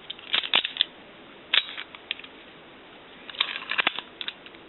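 Lock pick and tension wrench working a Master Lock No. 40 pin tumbler padlock: small metallic clicks and scrapes in irregular groups, one about half a second in, another about a second and a half in, and a longer run near the end.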